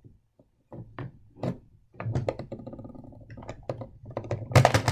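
Small clicks and taps of a screwdriver working a tiny screw out of a model train carriage. A low steady hum joins in about two seconds in and gets louder near the end.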